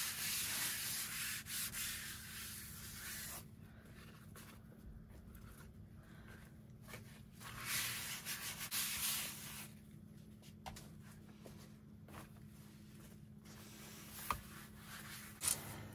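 A cleaning wipe rubbed over the surface of a laser-engraved mirror, wiping off the soot left by the engraving. The rubbing comes in spells: one at the start, another about eight seconds in, and a short one near the end, with a few light taps between.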